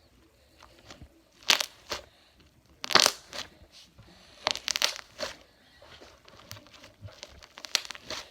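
Fluffy slime being squeezed and pressed by hand, giving off irregular bursts of crackling, popping noise several times over.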